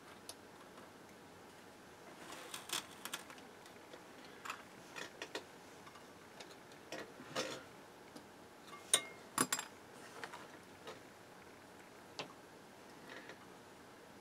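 Scattered light clicks and taps of small hand tools and test probes being handled on an electronics workbench, at an irregular pace. There are small clusters a couple of seconds in and around five, seven and nine seconds in; the loudest taps come near nine seconds. A faint steady hiss sits underneath.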